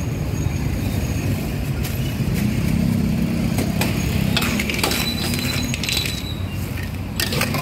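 A metal ladle scrapes and clanks in a large wok as stir-fried cockles are scooped out, their shells clattering, mostly in the second half. A steady low rumble runs underneath.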